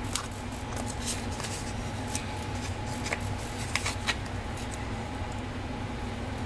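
Small planner stickers being peeled off their sheet and pressed onto a paper planner page: a scatter of light clicks and rustles during the first four seconds, fewer after, over a steady low hum.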